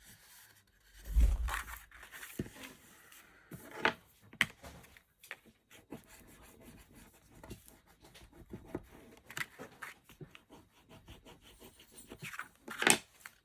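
Stiff 300 GSM cardstock being handled and pressed together while gluing: scattered rubbing and rustling of card with small taps, a low thump about a second in and a sharp tap near the end.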